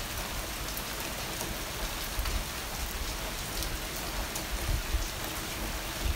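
Heavy rain pouring in large drops, a steady dense hiss of rain hitting the roof tiles, fence and garden. A few low thumps stand out, about two seconds in, near the five-second mark and near the end.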